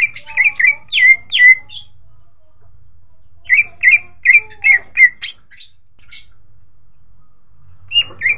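Male green leafbird (cucak ijo) singing in runs of quick, sharp down-slurred whistled notes. A run of about six notes opens, a second comes a couple of seconds later, and a few more notes sound near the end.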